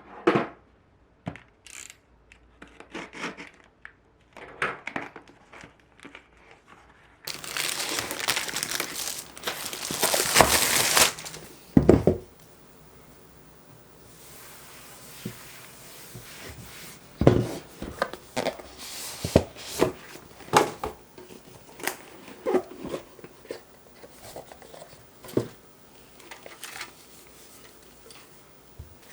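Plastic packaging crinkling and tearing as a keyboard kit is unpacked. A dense stretch of rustling near the middle is followed by a heavy knock, then scattered clicks and knocks of parts being handled on a desk.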